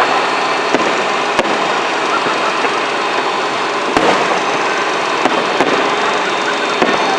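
Fireworks going off: a dense, continuous crackle with several sharper pops and bangs through it, the strongest about four seconds in.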